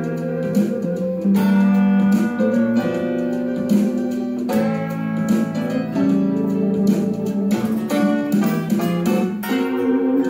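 Telecaster-style electric guitar playing a country and western swing lead, with held notes and chords, several of them bent in pitch, and a steady stream of picked attacks.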